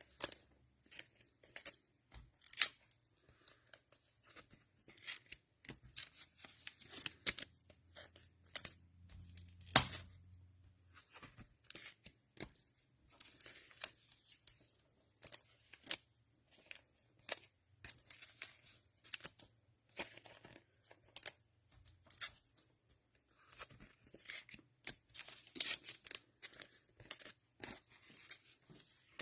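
Plastic cellophane wrapper of a Panini Mosaic football cello pack being torn open and crinkled, in many short, sharp crackles.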